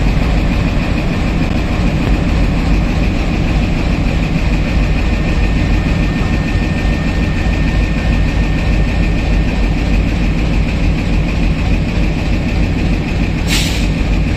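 WDM-3D diesel locomotive's 16-cylinder ALCO 251 engine running steadily as the locomotive moves slowly along the track: a constant low rumble with a steady high whine above it. A brief hiss comes near the end.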